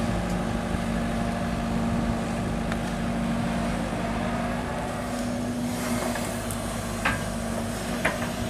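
Sumitomo 265 hydraulic excavator's diesel engine running steadily at working speed, with a few short sharp clanks from the machine.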